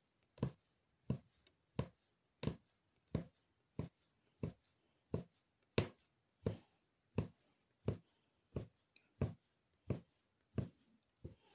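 Punch needle pushed through taut stretched fabric over and over, each stroke a short, dull tap, about one and a half a second, steady throughout: some seventeen strokes.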